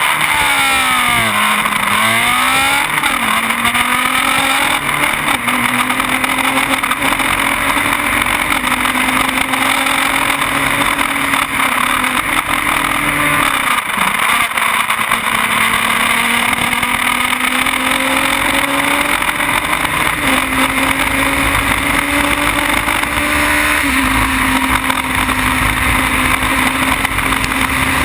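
Onboard sound of a Formula BMW single-seater's 1.2-litre BMW motorcycle four-cylinder engine at racing speed. Its pitch climbs through the gears and drops at each shift, falls and rises sharply near the start and dips deeply about halfway, under a steady rush of wind over the microphone.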